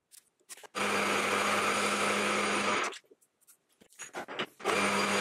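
Metal lathe running in two stretches of about two seconds each, starting and stopping abruptly: a steady motor hum with a hiss over it as it turns a phosphor bronze spigot down to size. A few faint clicks fall in the quiet between the two stretches.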